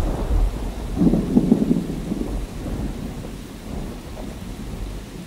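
Thunder rumbling over steady rain, with a louder peal about a second in that dies away over the following seconds.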